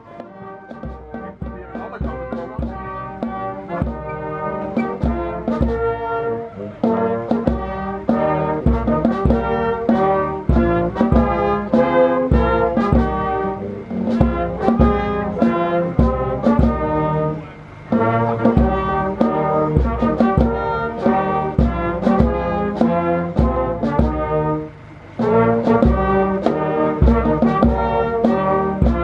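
Brass band music with a steady beat, dropping out briefly twice in the second half.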